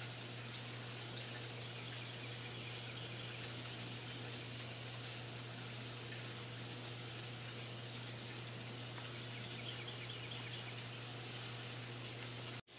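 Steady hiss of outdoor background noise with a low hum underneath, and a faint rapid run of high chirps about ten seconds in.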